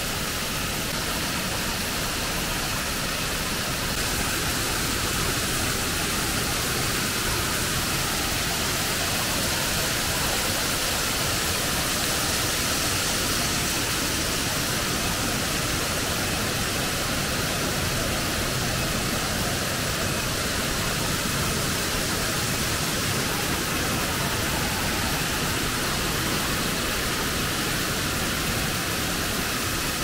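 Steady, unbroken rush of a twin waterfall, two falls pouring down rock into a plunge pool.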